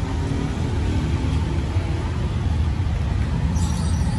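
Street traffic: a steady low rumble of passing vehicles, with faint voices in the background and a short hiss near the end.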